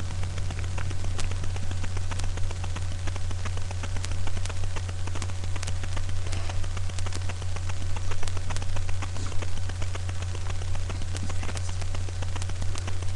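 Steady low electrical hum with dense, irregular crackling clicks from a webcam's microphone, no voices.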